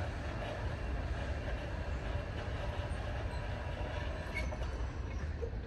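Freight train running on the rails as it clears the crossing, a steady low rumble of wheels on track.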